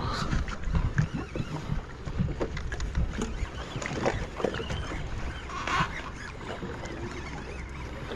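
Sea water lapping and slapping against a small fishing boat's hull, with irregular knocks and clicks as a conventional jigging reel is cranked to bring up a hooked fish.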